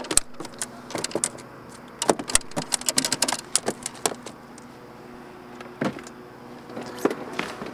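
Quick clicks and knocks of fishing tackle being handled in a small metal boat, dense for about three and a half seconds and then only a few, over a faint steady hum.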